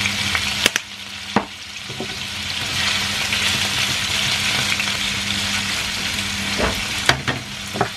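Chicken pieces sizzling as they fry in a non-stick frying pan, stirred with a spatula that knocks against the pan a few times, twice early and three times near the end. The sizzle dips about a second in, then builds back up.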